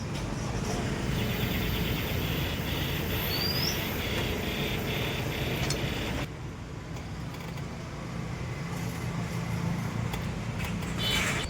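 A motor vehicle's engine running steadily, with a fast ticking pattern for the first half and a sudden drop in level about six seconds in. Short rising bird chirps are heard twice.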